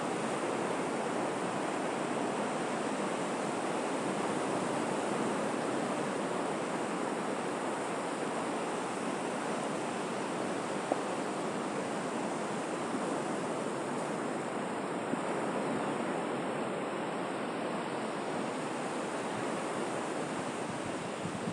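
Steady wash of sea surf: waves breaking and rushing in an even, unbroken roar, with no single wave standing out.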